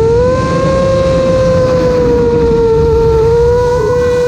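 Onboard audio of an FPV aircraft's electric motors: a steady whine that rises slightly about half a second in and sinks gently later, over a low rumble of wind on the microphone.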